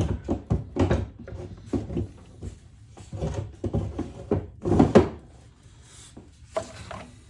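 Irregular knocks and clatters of small tools and odds and ends being handled and set down, some against wood, with the loudest knock about five seconds in.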